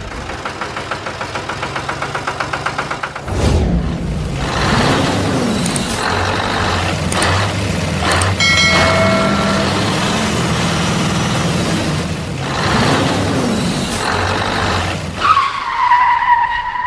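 Truck sound effects: a truck engine running with a rapid pulsing at first and then a steady drone, a short horn blast about halfway through, and a falling squeal near the end.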